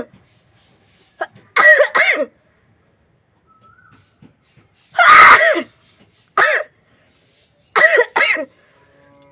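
A woman sneezing again and again, set off by tickling her nose with a blade of grass: about six voiced sneezes, several in quick pairs, the longest and loudest about five seconds in.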